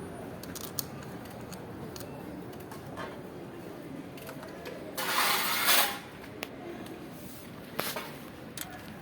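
Metal tools clinking and knocking a few times during car repair work, with a loud hiss lasting about a second near the middle.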